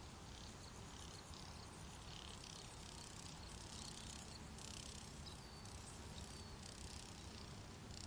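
Plains zebras grazing: soft, irregular crunching of grass being torn and chewed, over a low rumble of wind on the microphone. Two faint bird chirps a little after the middle.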